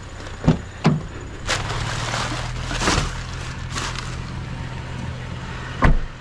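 A vehicle engine running steadily, with a handful of sharp knocks and clunks over it, the loudest near the end.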